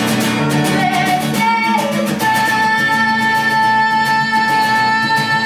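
Acoustic guitar strummed steadily as a woman sings, her voice bending through a short phrase and then holding one long note from about two seconds in.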